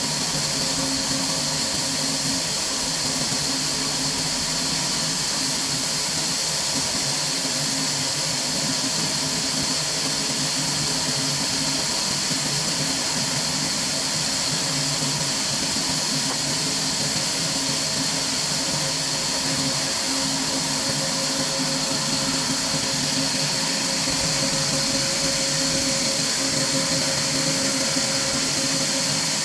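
Steady machinery drone with several constant hum tones and a strong high hiss, unchanging throughout.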